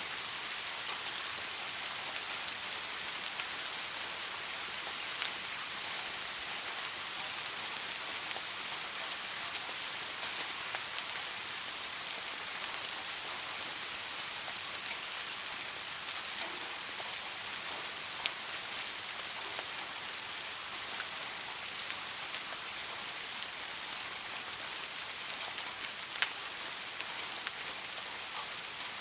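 Steady soft rain falling on a surface: an even hiss with scattered sharper drops landing now and then.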